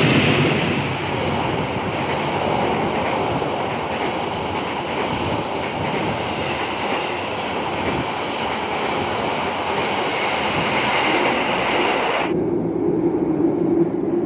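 KA Taksaka express passenger train passing at speed through a station: a loud, steady rush of wheels and coaches on the rails. About twelve seconds in it cuts off abruptly to a quieter, lower rumble.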